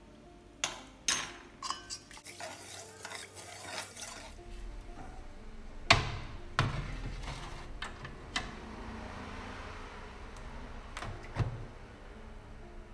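A metal spoon stirring and clinking against a rice cooker's inner pot, scraping through rice and water. About six seconds in there is a loud knock, then a few sharp clicks as the pot goes into the rice cooker and the lid is handled.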